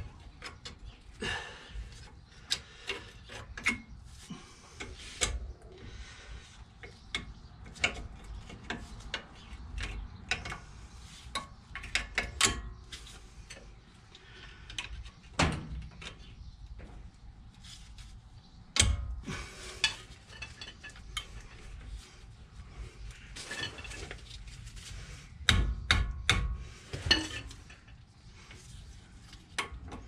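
Metal clinks, clicks and scrapes of a long screwdriver worked against a car's front brake caliper, levering a part into place. The clicks come irregularly, with a few louder knocks near the middle and about two-thirds of the way through.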